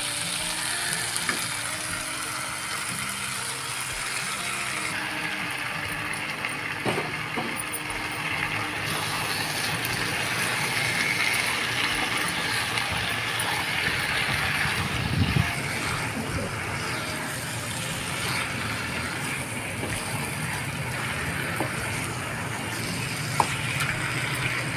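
Chicken pieces sizzling steadily in a pan of frying onion, tomato and gongura leaves, with an occasional knock of the spatula.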